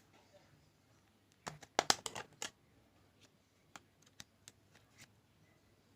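Hands handling a basic mobile phone's plastic casing: a quick cluster of clicks and scrapes about one and a half seconds in, then a few single faint clicks.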